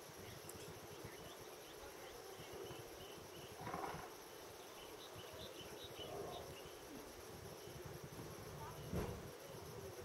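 Small bird splashing in a shallow puddle as it bathes, two brief splashes, about four seconds in and near the end. Underneath, a steady high insect drone and a string of faint high bird chirps.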